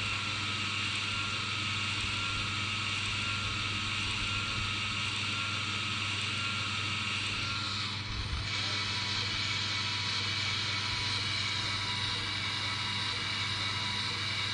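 Electric motors and gear trains of a Lego Technic Liebherr R 9800 excavator driving its crawler tracks: a steady whirring whine that shifts up in pitch about eight seconds in.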